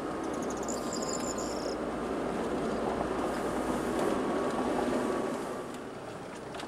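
Off-road SUV creeping along a rocky dirt track, heard from inside the cab: a steady rumble of tyres on stones and engine, easing off a little near the end. A brief high chirping sounds about a second in.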